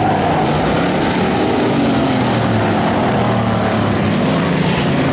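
Several Bomber-class stock race cars' engines running loud at racing speed, the pitch of each engine bending up and down as the cars circle the track.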